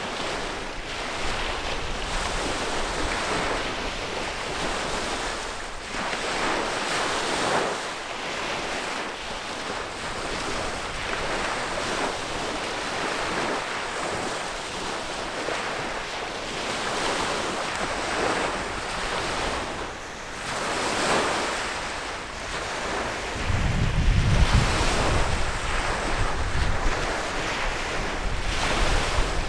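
Small waves washing against the shore in repeated surges, with gusts of wind buffeting the microphone, heaviest about twenty-four seconds in.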